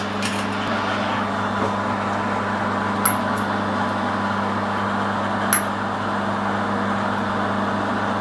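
Steady machine hum, with two light metallic ticks about three and five and a half seconds in as a thin hand tool touches inside the bored steel sleeve.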